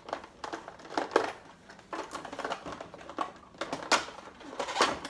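Plastic toy packaging crinkling and crackling in irregular bursts as the twist ties holding a doll are untwisted and the doll is worked free of its box.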